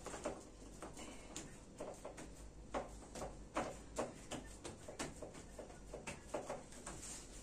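Hands pressing and patting pizza dough out across a round baking tray lined with baking paper: soft, irregular pats and light knocks, several a second.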